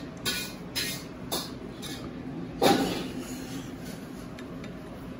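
A spoon clinking and scraping against a ceramic plate while scooping fried rice. There are a few short clinks about half a second apart, then one louder clatter a little before the middle, over a steady low room hum.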